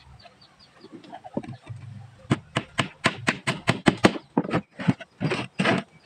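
Hammer driving a nail into the edge of a plywood box: a few light taps, then a run of about a dozen sharp strikes, about four a second, spacing out over the last few blows.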